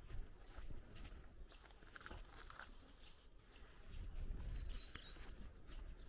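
Faint footsteps crunching on a sandy dirt lane, with a short bird chirp about five seconds in.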